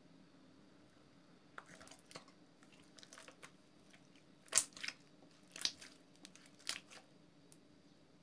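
Clear green soap-and-water slime being stretched and squeezed by hand, giving a string of short crackles and pops that start about a second and a half in; the three loudest come about a second apart in the second half.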